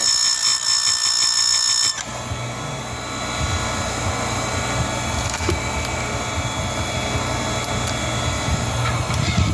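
Chainsaw chain grinder with a CBN wheel: a high steady whine for about two seconds that stops suddenly, then a steady grinding rasp with a low hum as the wheel works a chain tooth.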